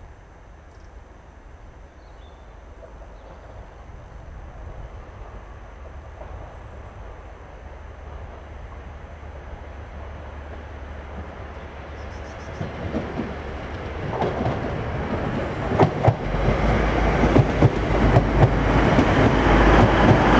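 Class 185 diesel multiple unit approaching over pointwork and passing close by, its engines and wheels growing steadily louder. Sharp wheel clicks over the rail joints and points begin about two-thirds of the way through.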